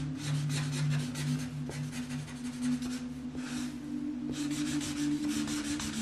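Felt-tip marker rubbing on paper in rapid back-and-forth colouring strokes, with a brief pause about four seconds in, over soft background music of steady held tones.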